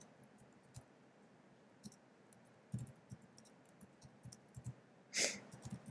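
Faint, irregular clicking of computer keys being typed. About five seconds in comes a brief, louder hiss.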